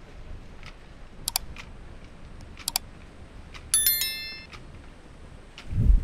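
A single metallic ding with several high ringing tones that fade over just under a second, about two-thirds through. It comes after two sharp double clicks, over a faint regular ticking, and a dull low thump follows near the end.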